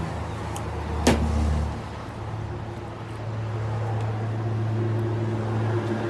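A motor vehicle's engine running, a steady low hum that rises to a higher pitch about two seconds in and holds there. About a second in there is a single sharp click.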